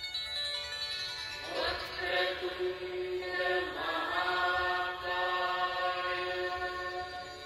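Background music of chanting voices, sliding into long held notes about a second and a half in and again near the four-second mark.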